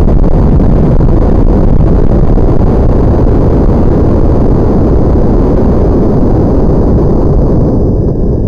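Wind rushing over the microphone of a mini spy camera carried on a flying water bottle rocket: a loud, steady, rumbling buffet whose upper hiss drops away near the end.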